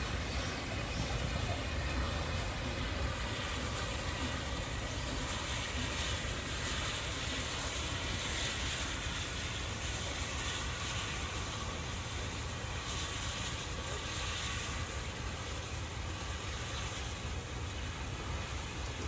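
Flying Scotsman steam locomotive giving off a steady hiss of steam over a low rumble, with no distinct beat.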